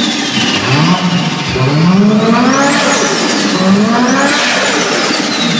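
Engine-like revving, rising in pitch again and again, every second or two, with high whistling sweeps that climb and then slowly fall.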